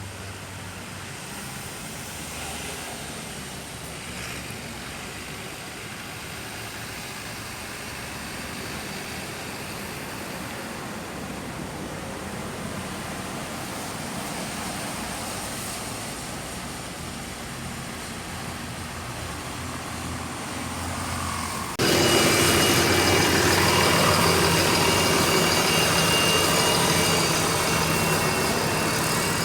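Road traffic noise with vehicle engines idling, a steady hum and hiss. About 22 seconds in it cuts abruptly to louder traffic with a steady engine drone.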